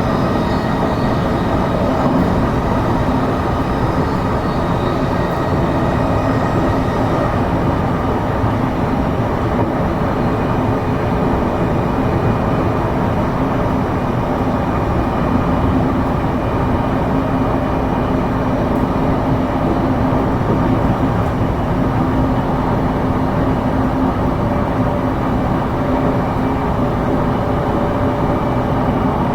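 Running sound inside a JR East E233 series electric train cruising between stations: a steady rumble of wheels on rail with a few faint steady tones.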